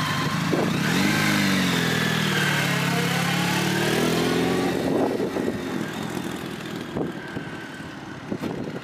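Motorcycle engine running close by, its pitch dipping and then rising, then fading away after about five seconds as it moves off.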